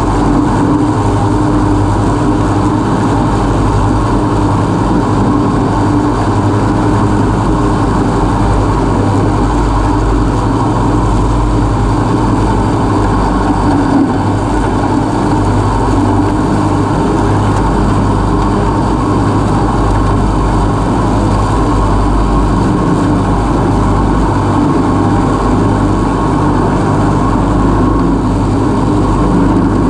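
Husqvarna Rider R214 TC ride-on mower running steadily, its 586 cc Loncin twin-cylinder engine under load while the three-blade front deck mulches slightly long grass.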